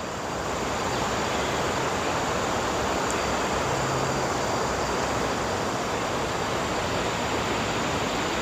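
Wind blowing steadily, a rushing noise that swells slightly about half a second in and then holds even.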